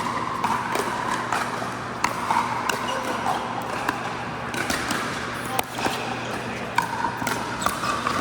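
Pickleball rally on an indoor court: hard paddles popping against the plastic ball and the ball bouncing, a dozen or so sharp hits at uneven intervals, over a background of indistinct voices and a steady low hum.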